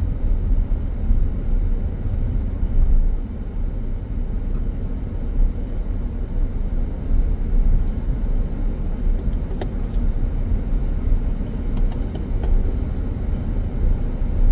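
Steady low rumble of a car being driven slowly, heard from inside the cabin: engine and tyre noise, with a few faint clicks in the second half.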